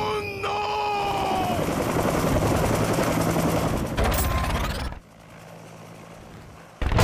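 Helicopter sound effect: dense rotor and engine noise for about five seconds, dropping away sharply and coming back loud just before the end. A held, slightly wavering tone sounds over it for the first second and a half.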